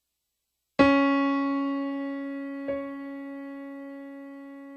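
Background piano music: a chord struck about a second in rings and slowly fades, and is struck again a little before the middle.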